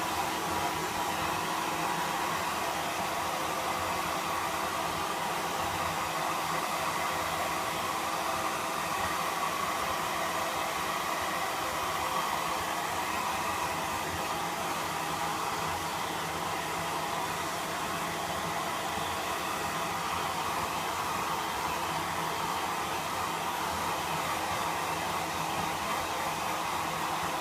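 Hair dryer blowing steadily on a freshly bathed Pomeranian's wet coat, a constant whooshing hum.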